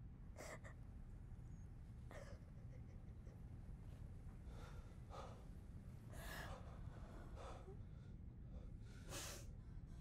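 A person gasping and breathing hard, in short separate breaths about every second or two, the loudest near the end, over a faint low room hum.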